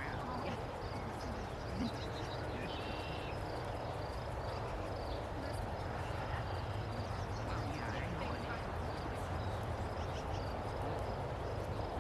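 Outdoor rural ambience: a steady high insect chirping runs throughout over a low rumble, with a few short bird chirps.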